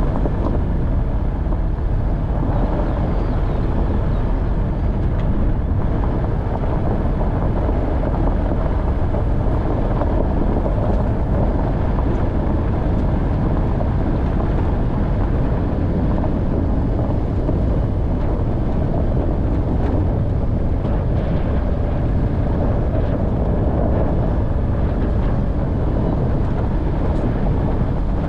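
Off-road vehicle driving on a rough track: a steady, loud mix of engine and tyre noise that holds even throughout.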